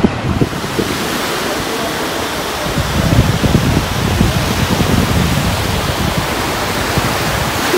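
Surf breaking on a sandy beach: a loud, steady rush of waves, with uneven low rumbling from wind on the microphone.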